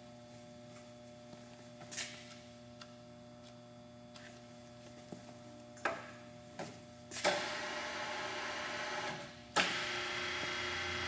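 Tailift TPR1100 radial arm drill's electric motor starting and running in two stretches of about two seconds each in the second half, over a low steady hum, with a few light clicks before.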